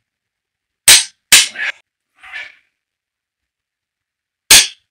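Adjustable click-type torque wrench on engine main bearing cap bolts, giving sharp clicks about a second in, again half a second later, and once more near the end as the bolts reach the set torque of 70 lb-ft.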